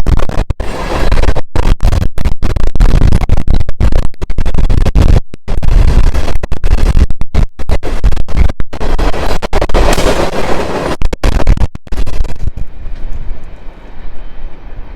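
Loud, distorted rumble of an empty grain train's cars rolling past close by, with the audio cutting out in many brief drop-outs. About twelve seconds in it turns duller and fades.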